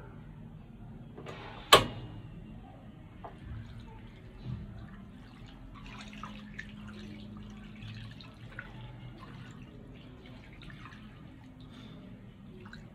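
Water pouring from a plastic jug into a wok over raw chicken pieces, splashing and trickling as the wok fills. A single sharp knock stands out about two seconds in.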